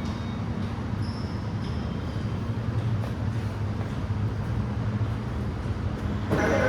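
Seoul Subway Line 2 train rolling slowly into the station: a steady low rumble of wheels and running gear, with a faint high whine about a second in. Near the end a louder, fuller sound suddenly starts over it.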